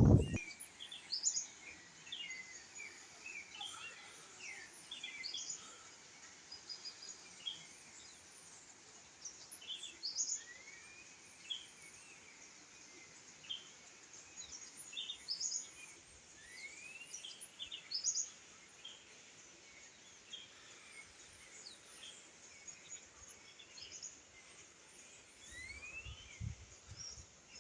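Several birds chirping and calling over a faint steady hiss. The calls are many short high chirps, with a few rising whistled notes scattered through.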